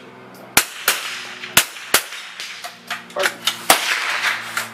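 Smallbore .22 rimfire rifles firing offhand along a match firing line: several sharp, light cracks at irregular intervals from different shooters, the loudest about half a second in and near the end.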